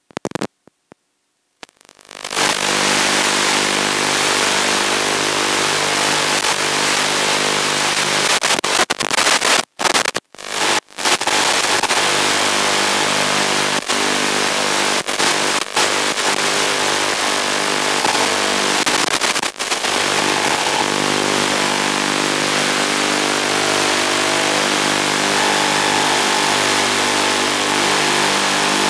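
Steady hiss with a buzzing hum from an analog FPV video link's audio channel: static with no live sound on it. It starts about two seconds in and cuts out briefly a few times near the middle.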